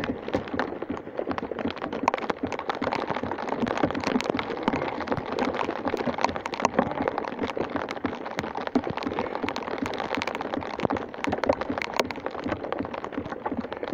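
Steady rain falling, with a dense patter of sharp ticks from drops landing close by.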